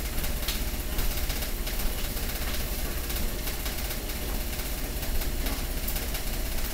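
Steady low hum under an even hiss, with a few faint ticks: background noise with no program sound playing.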